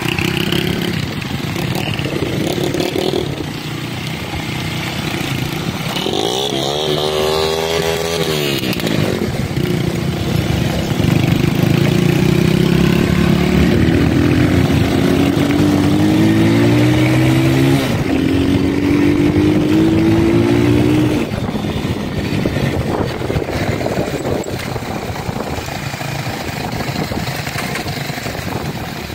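Small single-cylinder CG-type motorcycle being ridden, its engine pitch climbing in steps as it accelerates through the gears, with one brief rise and fall in revs a quarter of the way in. The engine is loudest through the middle, drops back about two-thirds of the way through, and wind noise runs over it.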